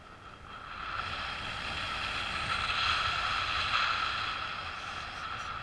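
Airflow rushing over the camera during paraglider flight, swelling about half a second in and easing near the end, with a steady whistle running through the rush.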